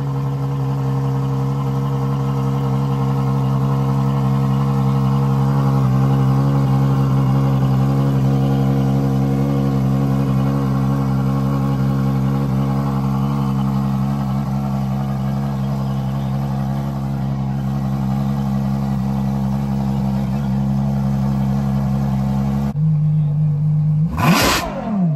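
Ferrari LAFerrari's 6.3-litre V12 idling high and steady, the fast idle of a cold start. Near the end the idle drops abruptly and a quick, loud rev follows.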